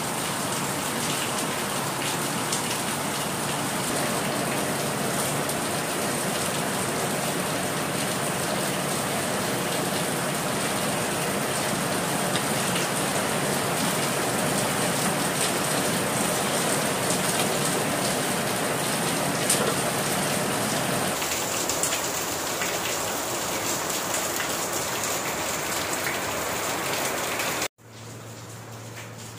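Squid and squash frying in a wok: a steady, loud sizzling hiss during the sauté. Near the end it cuts off abruptly to a much quieter low hum.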